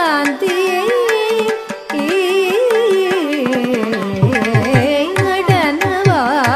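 Carnatic music: a melodic line with wavering, sliding gamaka ornaments over mridangam and ghatam strokes, with deeper drum strokes coming in thickly about four seconds in.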